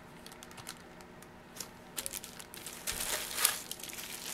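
Plastic packaging bags crinkling as bagged accessories are handled: a scatter of short crackles starting about a second and a half in.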